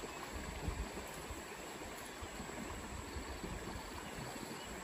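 Steady rushing outdoor noise with a gusty low rumble of wind on the microphone, mixed with the rustle of a tree's leaves and branches as a person climbs it; a light knock comes less than a second in.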